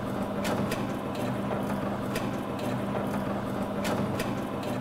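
Dough mixer's electric motor running with a steady hum while its paddle churns flour and water into dough, with irregular sharp clicks from the mixing.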